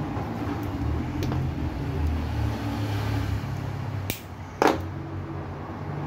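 Small handling sounds of wire leads being worked at a rewound fan-motor stator, with a sharp snap about four and a half seconds in, over a steady low background rumble.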